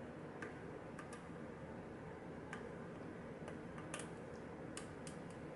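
Faint, irregular small metal clicks of a lock pick working the pins of a pin-tumbler lock under a tension wrench, about nine in all, over a steady low hum.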